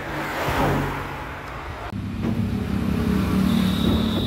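A motor vehicle going by, followed from about halfway by a vehicle engine running steadily, with a thin high whistle joining near the end.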